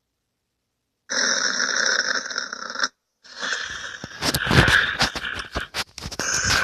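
A person snoring with one long, wheezing snore about a second in. After a short pause come a rapid flurry of knocks and rustling, the loudest part.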